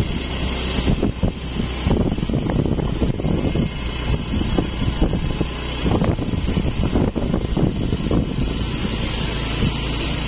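Wind buffeting the phone's microphone: a loud, continuous crackling rumble, with a thin steady high whine above it.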